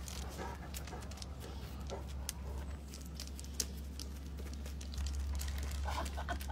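A large dog's claws tapping on concrete in scattered light clicks as it walks, over a steady low hum.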